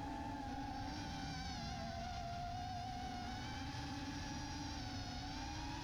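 FPV quadcopter's electric motors and propellers buzzing steadily, the pitch sagging a little then rising again near the end with throttle, over low wind rush on the onboard camera's microphone.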